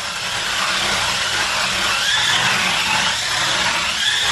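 Small electric motors of a toy RC drift car whining as it drives and spins, the pitch rising and falling with the throttle.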